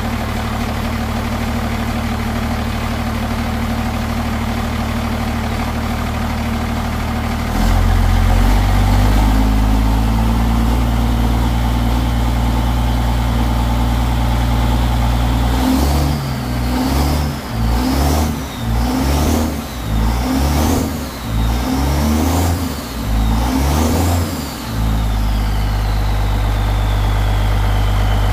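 Cummins turbo-diesel engine running just after its first start on newly rewired fuse and injection-pump circuits: a steady idle that picks up about a quarter of the way in, then about nine quick throttle blips roughly one a second. A turbo whistle rises and falls with each blip, then winds down slowly as the engine settles back to idle.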